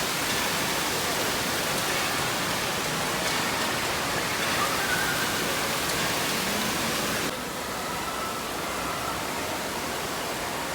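Steady rushing-water noise of an indoor waterpark, an even wash of spraying and falling water echoing in a large hall; it drops slightly in level about seven seconds in.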